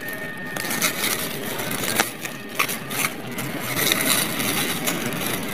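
Dry fallen leaves and twigs rustling and crackling, close up, as a hand pushes through leaf litter and vine leaves, with many small snaps and crackles.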